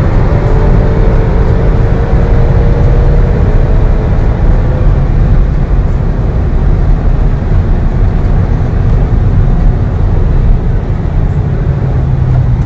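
Car at motorway speed heard from inside the cabin: a loud, steady low rumble of engine, tyres and wind, with an engine note climbing slowly over the first few seconds as the car accelerates.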